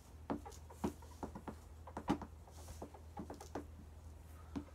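Markers writing on handheld boards: a quick, irregular run of short strokes and small taps.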